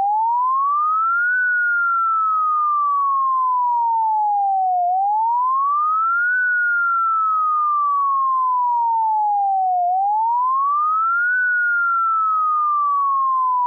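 Synthesized emergency evacuation alarm tone, made in Audacity to imitate a standard evacuation siren. A single pure tone rises quickly for about a second and a half, then slides slowly back down for about three and a half seconds, and the cycle repeats three times.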